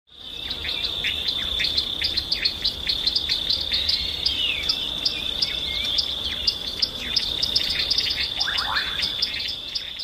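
Nature ambience: a steady, high-pitched insect trill with small birds chirping and whistling over it, and a few rising calls near the end.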